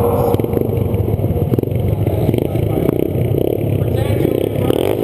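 Small youth dirt-bike engines revving and accelerating away at a race start, the nearest bike heard close up from a helmet-mounted camera.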